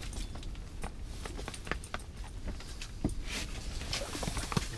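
A spinning reel being wound in and fishing gear handled as a hooked whitefish is brought up to the hole: scattered soft clicks and rustles over a low rumble.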